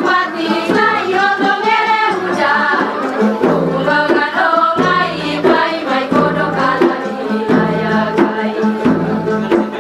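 A song with singing over instrumental accompaniment and a steady beat. The singing is clearest in the first few seconds, after which the beat and accompaniment carry on.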